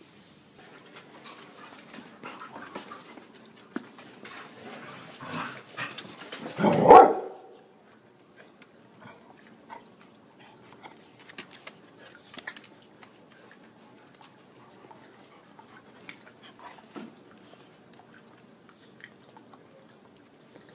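A poodle barks once, loudly, about seven seconds in. Then come only faint, irregular clicks and splashes, as the dog laps water from a stainless steel bowl.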